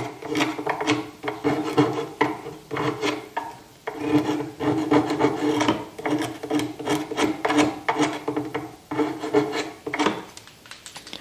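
A thin metal blade scraping along the freshly router-cut threads of a large wooden screw, clearing out the fluffy torn wood fibres. It goes in quick repeated strokes, about two or three a second, which stop about ten seconds in.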